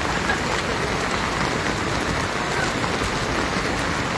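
Heavy rain falling in a steady downpour on wet pavement.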